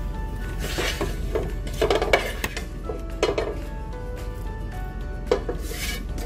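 A metal spoon scraping and clinking against a pan as dry-fried chicken is spooned out, several irregular knocks and scrapes, over soft background music.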